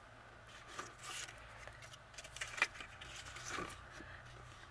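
Faint rustling and light taps as sheets of paper and adhesive sequins are handled and swapped, with a sharper tick about two and a half seconds in.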